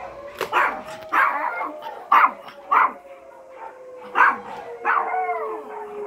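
Yorkshire terriers barking and yipping in about six short outbursts, reacting to an alarm siren. Under them the siren wails steadily, its pitch slowly falling.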